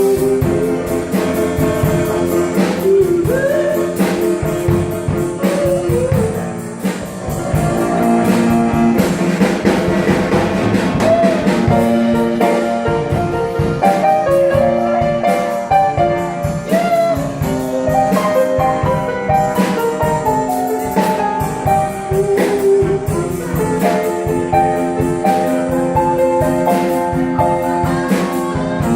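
Live band music: an instrumental break with guitar and drums, a lead line bending between notes over the chords.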